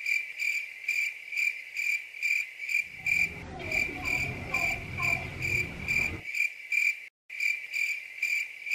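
Cricket-chirping sound effect: a high, even chirp repeating a little over twice a second, broken by a short dead gap about seven seconds in. It is the stock comic cue for an awkward silence.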